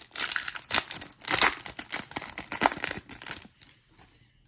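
A Goddess Story trading card pack's wrapper crinkling and tearing as it is opened, in irregular crackles that die away after about three and a half seconds.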